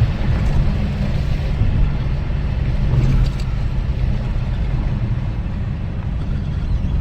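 Carbureted-style rumble of a 383 cubic-inch small-block Chevy V8 on Holley Sniper EFI in a 1987 Monte Carlo SS, running steadily as the car moves off.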